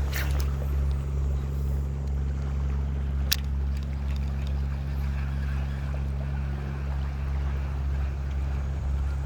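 Boat engine running steadily at a constant low drone, with two sharp clicks, one just after the start and one about three seconds in.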